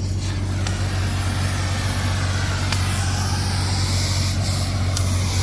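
A heavy scrapyard machine's engine running steadily under load, with a few sharp clicks and faint gliding high-pitched tones as it works on a scrap car.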